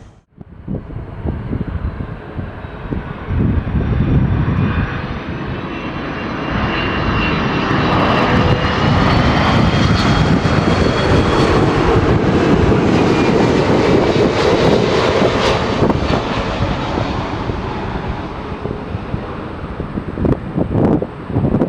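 Airbus A330 jet engines on a landing approach: a loud roar with a high whine that glides slightly, swelling to its loudest in the middle and then easing off. Gusts of wind hit the microphone near the end.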